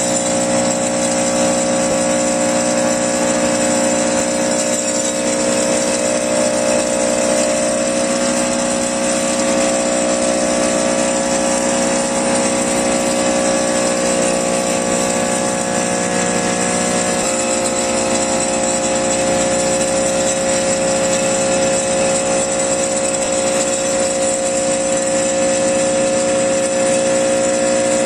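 Resonant pile driver running steadily: a constant machine hum with even, unbroken tones and no separate blows. Its pitch steps down slightly about two-thirds of the way through.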